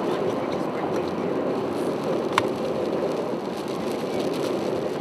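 Steady road and engine noise inside a moving car, with one short sharp click about two and a half seconds in.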